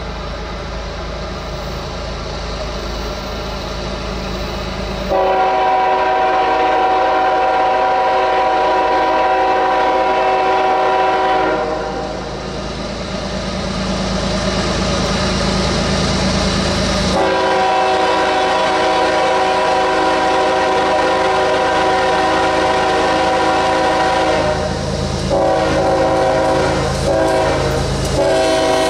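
Diesel freight locomotive's air horn sounding a multi-note chord in long blasts, with a short blast near the end, over the rumble of the approaching train.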